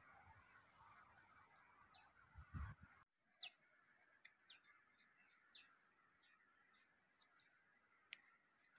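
Faint short, high bird chirps scattered through near silence over a steady high hiss, with a soft low thump before the first chirp.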